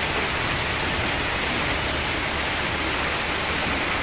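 Heavy rain pouring steadily, an even, unbroken hiss of rain on water, leaves and wet ground.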